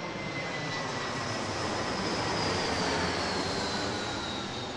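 Airliner passing by: a steady engine rush that swells to a peak past the middle and then eases off, with thin whines that slowly fall in pitch as it goes by.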